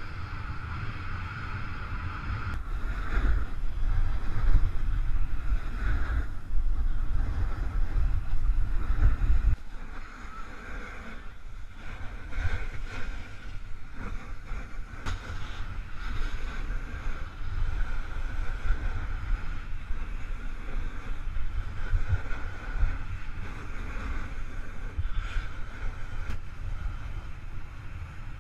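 Wind buffeting the microphone of a camera riding down a groomed piste on a snowboard, with the steady hiss and scrape of the board sliding over the snow. The heavy low rumble drops off suddenly about ten seconds in.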